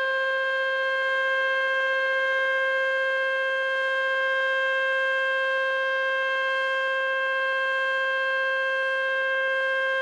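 Nuclear power station's pole-mounted outdoor warning siren sounding a steady, unwavering tone during a siren test.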